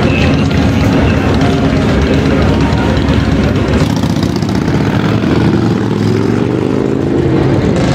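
Cruiser motorcycles passing in street traffic with their engines running, and one engine's pitch rising near the end as a bike accelerates.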